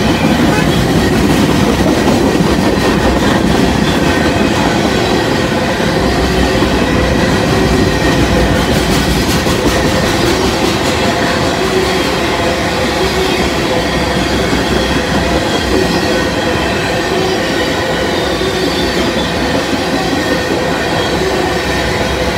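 Freight train of tank cars rolling past close by: loud, steady noise of steel wheels on the rails.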